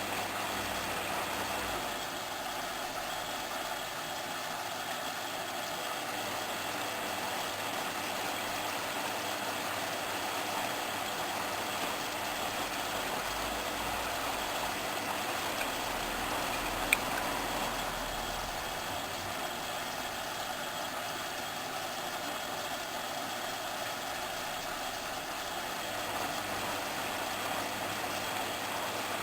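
Hoover Inter@ct front-loading washing machine running steadily, its drum driven by a replacement motor taken from a Candy Aliseè. There is one sharp click about 17 seconds in.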